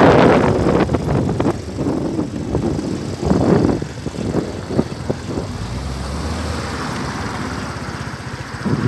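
Motorcycle on the move: wind buffeting the microphone in irregular gusts over the low running of the engine.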